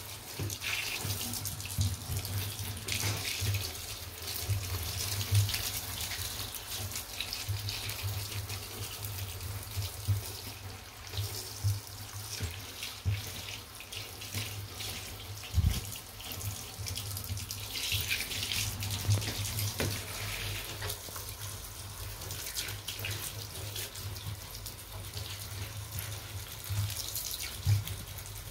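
Water running steadily from a hand-held shower head, splashing onto a sneaker and the bathtub floor as the shoe is rinsed and rubbed by hand. Occasional small knocks from handling, with one louder thump about halfway through.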